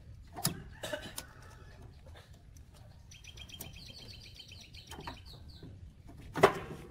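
Sharp metal clinks and knocks as a finned cast-iron cylinder is handled and seated onto an air compressor crankcase, the loudest knock near the end. In the middle, a bird chirps a rapid run of high notes for a couple of seconds.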